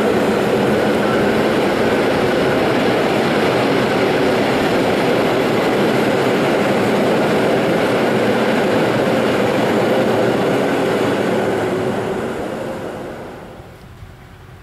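Freight train of double-deck car-transporter wagons rolling past on the rails: a loud, steady rumble and clatter of wheels that fades away over about two seconds near the end as the train moves off.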